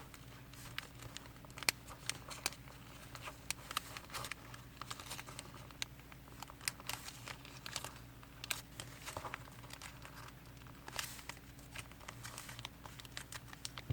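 Origami paper being folded and creased by hand: faint, scattered crinkles and sharp paper ticks, over a low steady hum.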